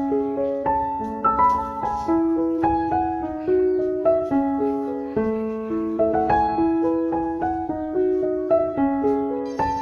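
Background piano music: a steady run of single notes, each struck and fading.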